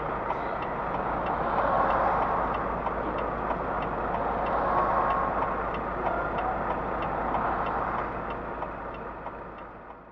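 Steady rumble of a running truck engine heard from the dashcam truck, with a regular tick about twice a second, fading out near the end.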